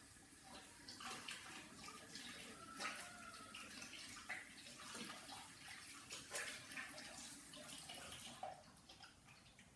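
Faint, irregular wet crackling and squelching of clear-glue slime being mixed and kneaded, dying away near the end.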